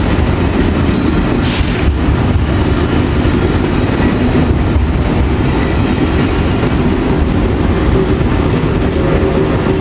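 Thalys high-speed electric train standing at the platform, giving a loud steady low rumble. A short hiss of air comes about a second and a half in, and a steady hum joins near the end.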